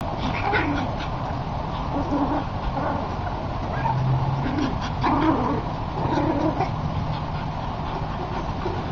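Short animal calls, scattered, over a steady low background noise.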